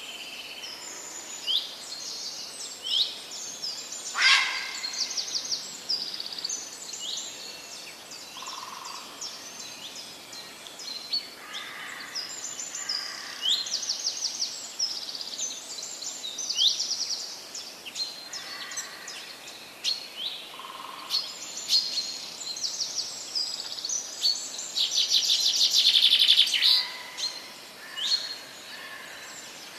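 Several forest songbirds singing and calling together: quick rising chirps and fast high trills overlapping. The loudest is a dense trill a few seconds before the end.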